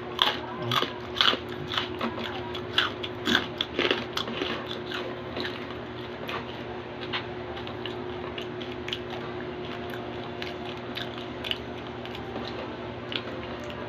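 Close-up chewing of crispy pork cracklings (chicharon): a quick run of sharp crunches for the first few seconds, thinning out to softer, sparser chewing.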